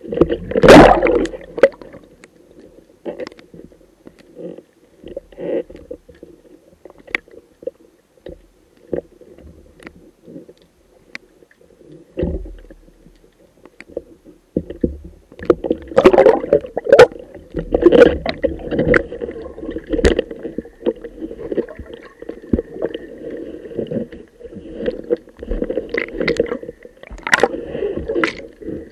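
Underwater sound picked up by a diver's camera: muffled gurgling of water and air bubbles over a steady low hum, with irregular knocks and clicks. There is a loud knock about a second in, and the clicks come thicker in the second half.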